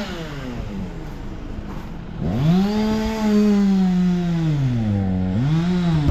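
Two-stroke chainsaw revving up and easing off several times: it winds down at first, revs hard about two seconds in and holds, drops off about five seconds in, then gives a short rev and falls back near the end.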